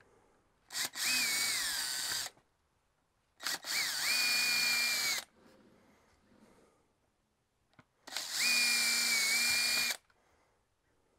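Power drill boring pilot holes through a wooden tom drum shell with light pressure, the cutter left to do the cutting. Three short runs of one and a half to two seconds each: the motor whine climbs quickly as the trigger is pulled, then holds steady until it stops.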